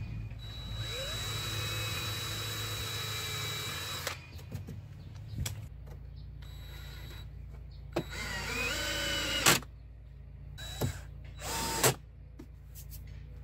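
DeWalt 18V cordless drill-driver driving screws into a stainless-steel strip in three runs. The first is long and steady after spinning up. The second climbs in pitch and ends in a sharp click, and the third is short and also ends in a click.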